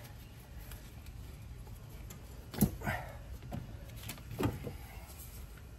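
About five short clanks and knocks of hand tools against engine parts during exhaust-manifold removal, bunched in the middle, over a steady low hum.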